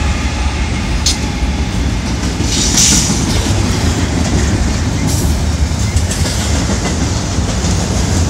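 Double-stack intermodal freight cars of a BNSF train rolling past close by: a steady, loud rumble of steel wheels on rail with clickety-clack over the joints. A few brief high-pitched noises come through about one, three and five seconds in.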